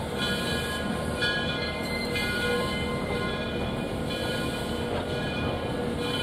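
A locomotive bell ringing over and over, about once a second, over the rumble of a slowly moving steam train.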